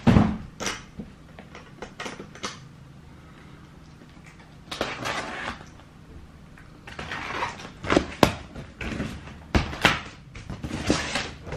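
Cardboard shoeboxes and packaging being handled: a thump right at the start, a few knocks, a short rustle in the middle, then a quick run of knocks and rustles near the end.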